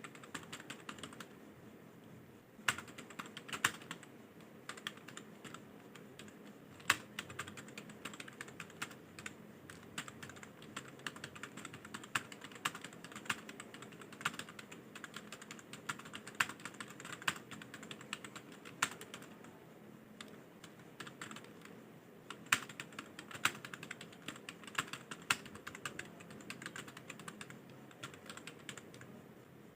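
Computer keyboard typing: a fast, uneven stream of key clicks with a few louder strikes, thinning out briefly near the start and again around two-thirds of the way through.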